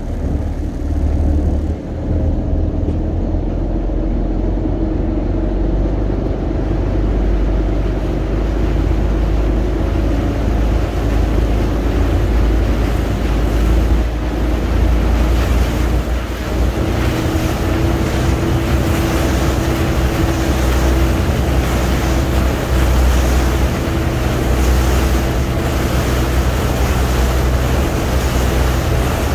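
Fishing boat's engine running steadily under way, over the rush of water from the wake and wind on the microphone. The engine note steps up a little about halfway through as the boat picks up speed.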